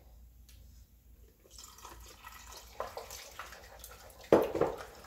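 Wooden spoon stirring thick cheese sauce in a saucepan: faint wet squelching after a quiet first second or so, with one louder knock of the spoon against the pot a little over four seconds in.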